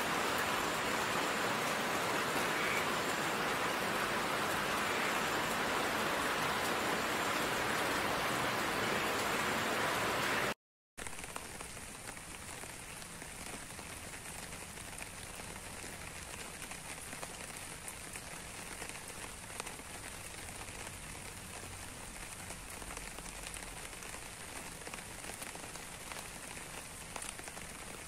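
Steady rain, a dense even hiss for about ten seconds; it cuts out briefly, then goes on as a quieter, lighter rain with many small drips pattering.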